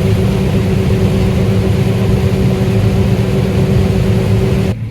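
Combine harvester running steadily while harvesting corn: a loud, even engine and machinery hum with a constant low drone. It cuts off abruptly near the end.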